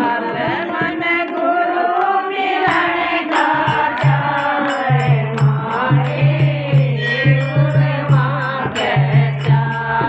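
Group of women singing a Hindi devotional bhajan together, with a dholak drum beating out a steady rhythm that comes in about halfway through, and sharp ticks keeping time.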